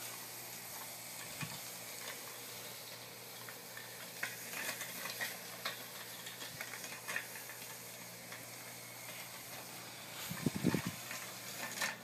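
A remote-control cart's two electric wheel motors running with a faint steady hum as it drives over grass, with scattered crackling from the tyres rolling over grass and dry leaves.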